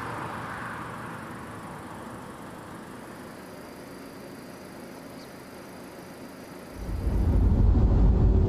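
Faint steady outdoor noise, then, about seven seconds in, a loud low rumble sets in and holds: wind buffeting the microphone.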